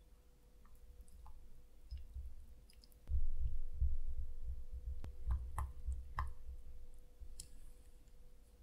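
A silicone spatula stirring melted chocolate and cream in a glass bowl: wet squishing, light clicks of the spatula against the glass, and dull low knocks. The stirring is briskest from about three seconds in.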